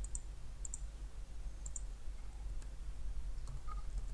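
A few scattered sharp clicks of a computer mouse and keyboard, over a steady low electrical hum.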